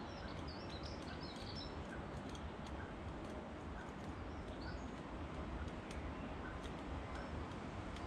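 Irregular light ticks of a great spotted woodpecker pecking at peanuts through a wire-mesh feeder. A few short, high bird chirps come in the first two seconds, over a steady low background rumble.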